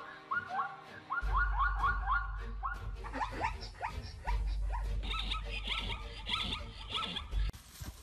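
Zebras barking: a rapid run of repeated yelping calls, several a second. About three seconds in, a different recording takes over, with higher calls over a low rumble.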